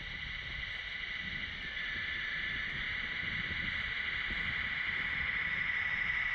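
Electric drive motor and gearbox of a Tamiya Grand Hauler RC semi truck running as it drives toward the microphone: a steady high whine that grows louder as the truck nears. A low fluttering rumble of wind on the microphone runs underneath.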